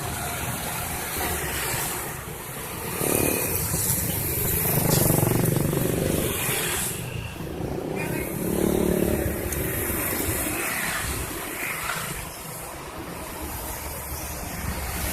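Road traffic passing: vehicle engines and tyre noise rise and fall as vehicles go by, loudest about five and nine seconds in.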